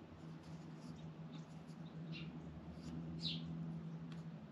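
Faint bird chirps: two short calls sliding downward in pitch, about two seconds in and again a little after three seconds, over a low steady hum.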